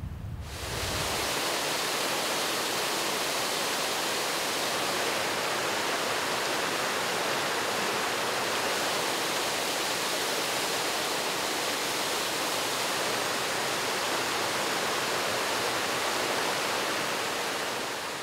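Mountain stream rushing, a steady even wash of water that sets in about half a second in and holds without change.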